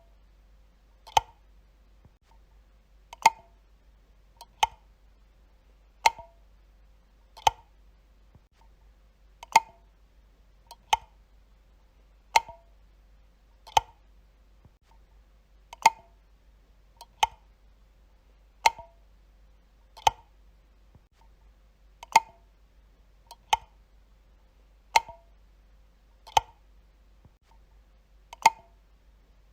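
Light switch being flicked over and over, one sharp click about every second and a half, with a slightly longer pause after every fourth click.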